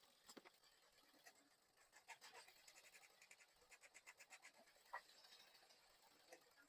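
Near silence with faint scattered clicks and scratching, a little busier in the middle.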